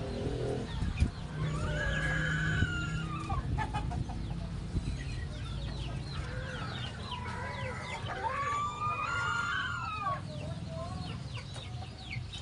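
Chickens clucking, with a rooster crowing twice: one long crow about a second and a half in and another about eight seconds in.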